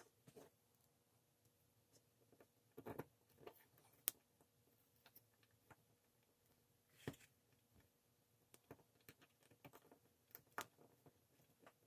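Faint scattered clicks and short scrapes from a small hex key turning the screws that mount a cooling fan onto an RC speed controller's heatsink. The sharpest clicks come about four seconds in and again near the end.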